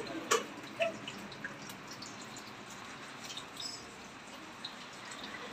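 A hand mixing marinated chicken pieces in wet batter in a steel plate: a few short wet clicks and clinks in the first second, then faint ticks, over a steady hiss.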